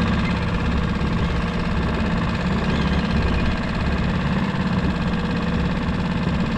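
Small boat outboard motor idling steadily, a constant low hum.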